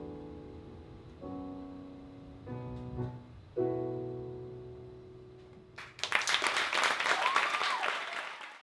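Piano playing the closing chords of a musical theatre song, a few sustained chords struck and left to ring. About six seconds in, audience applause breaks out and is cut off abruptly near the end.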